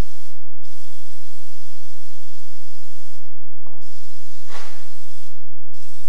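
Aerosol spray can hissing in long continuous bursts as it is sprayed. The hiss breaks off briefly three times: about half a second in, about three and a half seconds in, and about five and a half seconds in. A louder spurt comes about four and a half seconds in.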